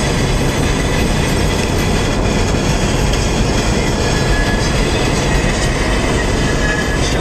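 Steady rumble of a car driving at speed on a paved road, tyre and engine noise heard from inside the cabin.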